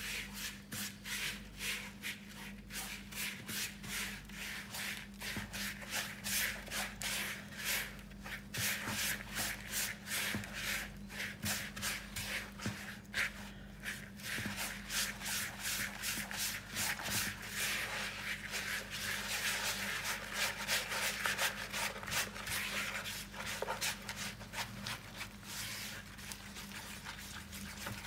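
A hand squeezing and rubbing softened butter and sugar in a plastic mixing bowl, creaming them together. Repeated scratchy rubbing strokes, a few a second.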